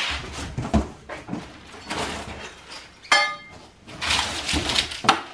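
Handling noises as parts are dug out of a cardboard box: knocks and clunks, then crinkly rustling of paper and plastic packaging from about four seconds in. A short high squeak stands out about three seconds in.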